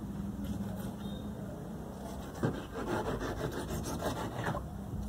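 Expanded polystyrene foam being carved to shape by hand: a noisy scraping in a run of quick strokes, heaviest in the second half.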